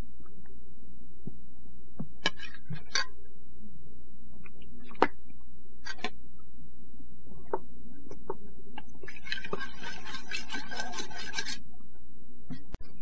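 Metal spoon clinking now and then against a stainless steel mixing bowl, then scraping around it for a couple of seconds while stirring sesame dressing, over a steady low hum.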